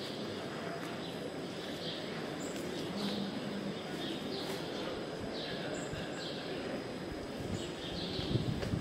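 A small bird chirping over and over, about once a second, above a steady background hum; a few low knocks come near the end.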